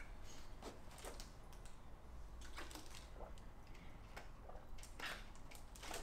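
Faint scattered clicks and light rustling of a plastic sports-drink bottle being handled, with a small cluster of clicks about five seconds in as its screw cap is twisted.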